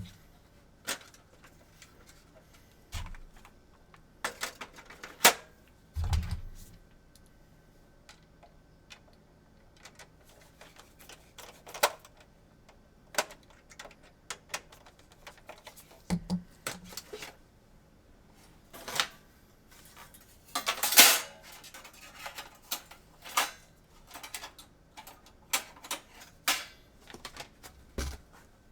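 Irregular clicks and taps of hands and tools handling a PS4 circuit board and its small parts during disassembly, with a few low knocks and one louder scraping rustle a little past the middle.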